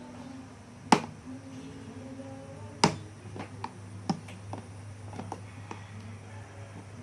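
Sharp clicks and knocks of hard objects being handled. Two loud ones come about one and three seconds in, then six lighter taps, over a steady low hum.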